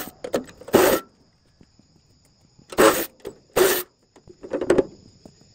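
Cordless power driver running in short bursts as it backs out the panel bolts: four bursts in two pairs about three seconds apart, with a light clatter of parts after the second pair.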